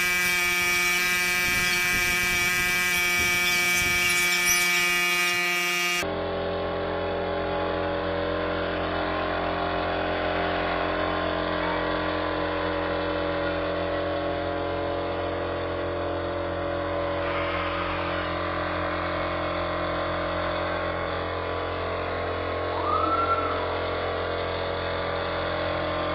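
Air compressor running with a steady motor whine and hum, supplying air to a spray gun for lacquering wood. About six seconds in the sound cuts to a duller, lower steady hum.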